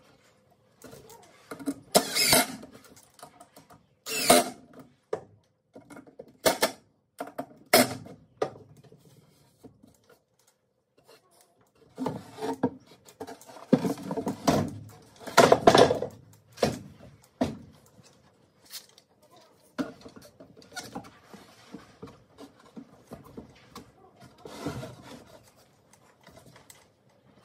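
Plywood panels being handled and fitted together on a workbench: a few separate wooden knocks and clunks in the first eight seconds, then a denser run of knocks and rubbing from about twelve to seventeen seconds in, with lighter taps after.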